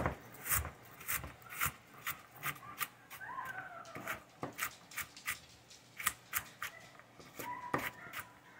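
Chef's knife dicing carrots on a plastic cutting board: a run of sharp chops, about two a second.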